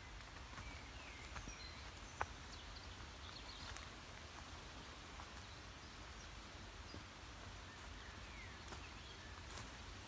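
Faint woodland birdsong, scattered short chirps and whistles over a low steady hiss, with footsteps on the forest floor and one sharp snap about two seconds in.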